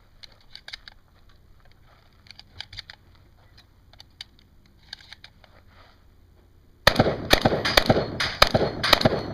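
A rapid string of loud shotgun blasts, about three or four a second, each trailing off in a short echo; the run begins about seven seconds in, after a stretch of faint, scattered distant pops.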